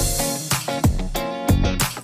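Background music with a drum beat.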